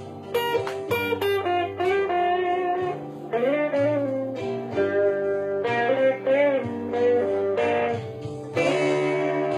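Telecaster electric guitar playing single-note lead lines, with string bends and wavering pitch about three and a half and six seconds in, over a low bass line that steps between notes every second or two.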